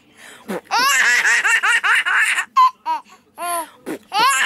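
Baby boy laughing in quick runs of high-pitched belly laughs, starting about a second in, breaking into a few shorter laughs, then picking up again near the end.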